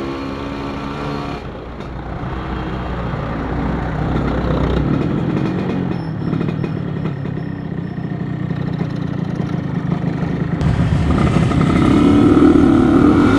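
Motorcycle engine running while riding, with road and wind noise on the helmet microphone; the engine gets louder near the end as the rider speeds up.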